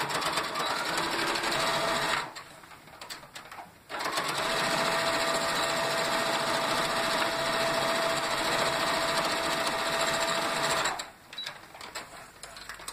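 Electric sewing machine stitching across the corner of a fabric bag in two runs: a short burst of about two seconds, a pause of under two seconds, then about seven seconds of steady running with a constant motor whine. It stops about two seconds before the end.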